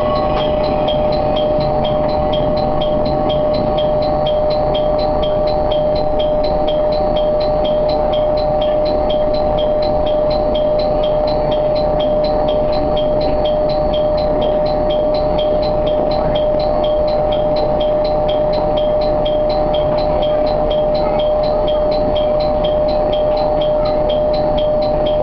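Tarumi Railway diesel railcar running slowly into a station, heard from the cab: a steady running noise with a constant whine and a light regular ticking throughout.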